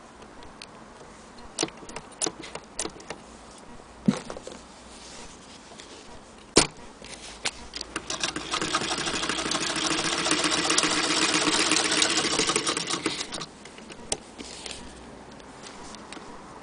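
Antique Frister & Rossmann hand-crank sewing machine. A few scattered clicks and knocks come first. Then it is cranked and stitches for about five seconds with a fast, even clatter, and it stops short.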